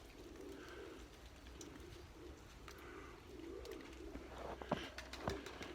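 Domestic pigeons cooing: faint, low warbling calls repeating one after another, with two sharp clicks in the last second or so.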